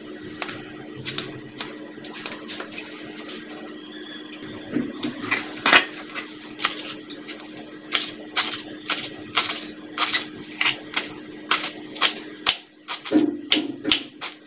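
Kitchen knife chopping a bunch of young cassava leaves on a plastic cutting board: sharp strikes that settle into an even run of about two or three a second from about halfway in. A steady low hum sits underneath.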